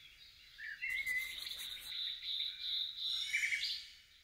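Birds chirping in short gliding calls over a high, steady insect-like trill that comes in about a second in and fades away near the end.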